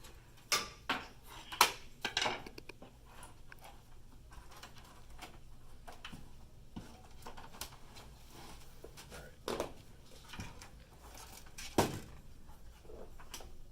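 Scattered light knocks and clinks of a computer motherboard and PC case being handled: a few in the first couple of seconds, then two louder ones later on, over a low steady room hum.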